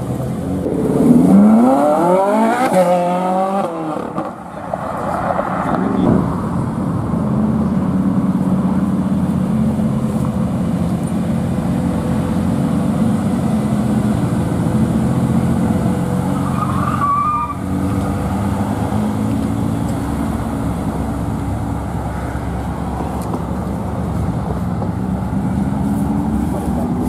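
A car engine revs up hard in a rising sweep about a second in, the loudest moment, then rises once more briefly. After that, engines run steadily at low revs, and the pitch starts to climb again near the end.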